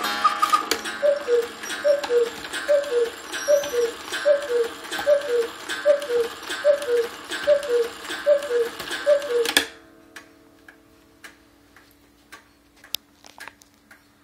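Antique cuckoo quail clock striking the hour. The quail's higher call ends just under a second in, then the cuckoo's falling two-note call from its bellows and pipes repeats about a dozen times, a little under a second apart. The calls stop suddenly near ten seconds, leaving the clock's faint ticking.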